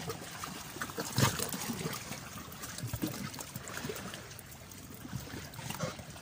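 Shallow seawater lapping and trickling against a rock, with small splashes from wading; a louder splash about a second in.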